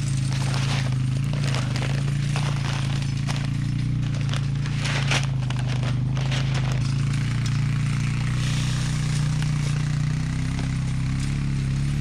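Four-wheeler ATV engine idling steadily, with crinkling and crackling of plastic seed bags being handled over it.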